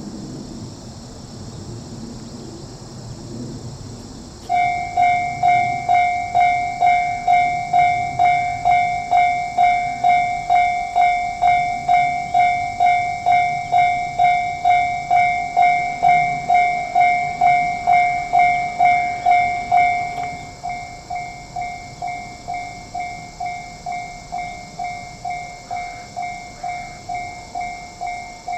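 Electronic warning bell of a Japanese level crossing starting about four seconds in and ringing an even two-tone ding about twice a second; roughly two-thirds of the way through it carries on at a lower volume. A steady high hiss sits underneath.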